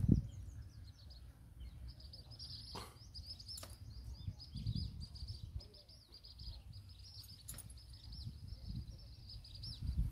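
Many small birds chirping and chattering in quick, high-pitched calls, starting about two seconds in, over a low rumble, with a few sharp clicks.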